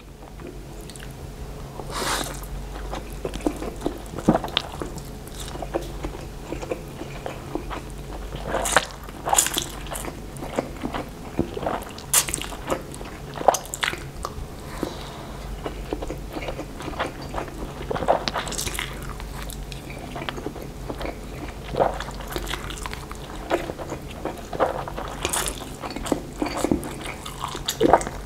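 A person slurping and chewing fried instant noodles eaten with chopsticks: irregular slurps, with smacking and chewing noises between them.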